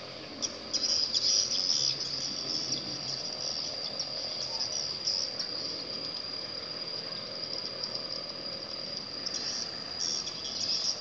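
Insects trilling: one steady high-pitched buzz, with louder spells of chirring about a second in and again near the end.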